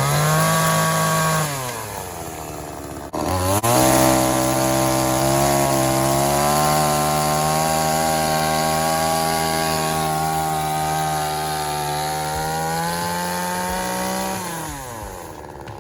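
Blue Max two-stroke gas chainsaw running at full throttle through a log. The revs sag about two seconds in, pick up again after a couple of sharp breaks, stay high and fairly steady for about ten seconds, then fall away near the end.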